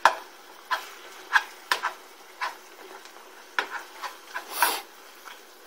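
A cooking utensil scraping and clicking against a nonstick frying pan in short, irregular strokes as ground beef is stirred and broken up in it while it browns.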